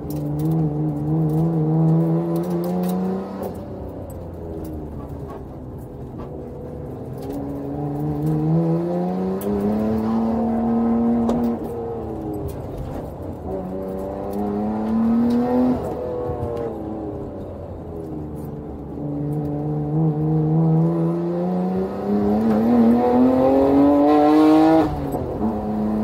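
Nissan Skyline R33 GT-R's twin-turbo RB26DETT straight-six, heard from inside the cabin, accelerating hard on track. The engine note climbs four times and falls back between pulls; the last pull is the longest and highest and drops away sharply near the end.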